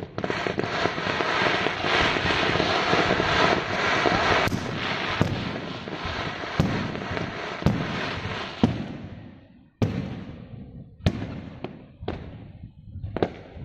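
Fireworks going off: a dense, continuous crackling with sharp bangs through it, which dies away about two-thirds of the way in, followed by several separate loud bangs.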